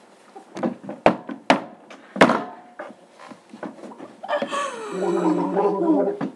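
Three sharp knocks or thumps close to the microphone, with lighter clicks between them. Then a drawn-out vocal sound from a person that slides downward in pitch, lasting about two seconds.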